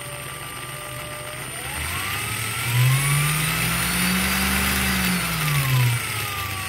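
Brushless motor of a Parkside Performance PWSAP 20-LI B2 cordless angle grinder, test-running on a replacement sensorless brushless motor control board as its speed potentiometer is turned. The motor's whine rises in pitch over the first three seconds, holds, then falls again about five seconds in as the motor slows.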